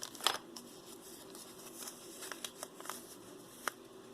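Scattered light clicks and taps of hands handling small pieces of jewelry, with a sharper click about a third of a second in and another near the end, over a faint steady hum.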